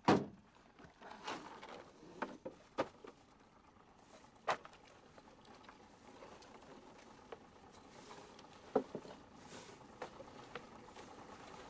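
A fishing net being hauled by hand into a boat: scattered soft knocks, clicks and patters of wet mesh, floats and dripping water, the loudest knock right at the start, over a low hiss of lake water.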